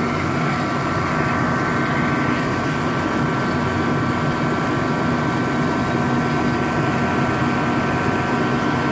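Endress diesel forced-air heater running steadily, lit and burning: the blower fan's even rush with a steady whine over it.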